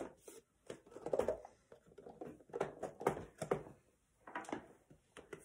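A cardboard action-figure box being handled and tipped over on a wooden desk: a scattering of irregular knocks, taps and rustles.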